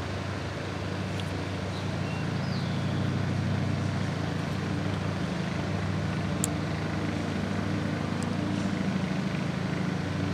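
A motor running steadily with a low hum, and one faint sharp click about six seconds in.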